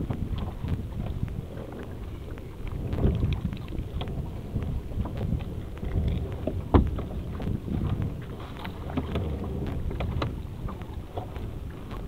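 Gillnet being hauled by hand over a small boat's gunwale: irregular rustles and knocks of the net and gloved hands against the hull, over a low wind rumble on the microphone.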